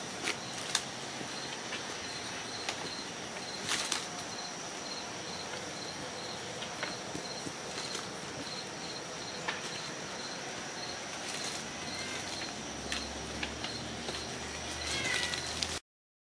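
Soft knocks, scuffles and rustles from Ragdoll kittens playing on carpet around a fabric play tunnel, over a steady hiss and a thin high whine. A short squeak comes near the end, and the sound cuts off suddenly.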